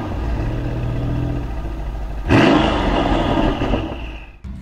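Car engine revving sound effect in a logo intro sting. A second sudden hit comes about two seconds in and fades away.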